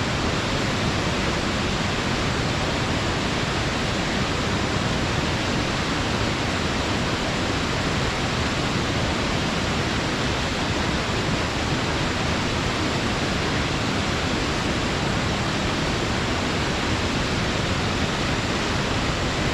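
Waterfall pouring steadily, a constant full rush of falling water with no change in level.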